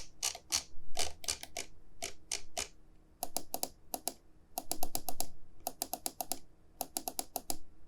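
VAXEE ZYGEN NP-01S wireless gaming mouse buttons clicking. First come single clicks about a third of a second apart. From about three seconds in, the clicks come in quick bursts of four to six.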